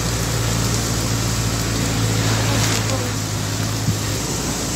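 Storm noise from a hurricane: a steady rush of wind and rain over a low, steady engine hum, as heard from a vehicle moving along the street. The hum fades out near the end.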